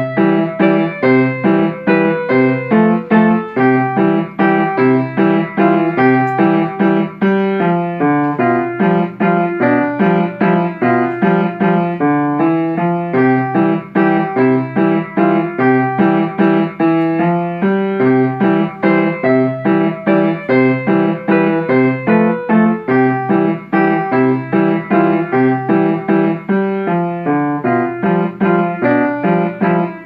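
Piano played by a child: a simple piece in steady, evenly spaced notes, both hands, with a repeating figure low in the bass.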